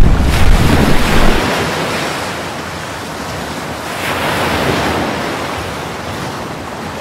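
Sea water rushing over a racing yacht's deck, with wind buffeting the microphone. It is loudest and deepest in the first second and a half, then settles to a softer rush of sea and wind that swells again about four seconds in.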